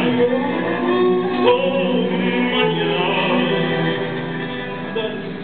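Music for the dance, with a voice singing long held notes over a steady accompaniment.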